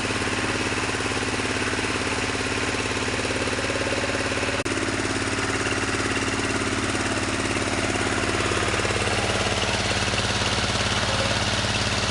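Wood crusher machine running steadily, a constant engine-like drone with a fine rapid pulse. A single brief click about four and a half seconds in, after which the tone shifts slightly.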